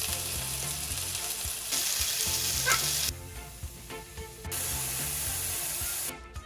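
Oil sizzling hard in a non-stick frying pan: first under a raw ground-meat patty, then under sliced white button mushrooms. The sizzle drops away for about a second and a half in the middle and comes back loud. Soft background music with a low bass line plays underneath.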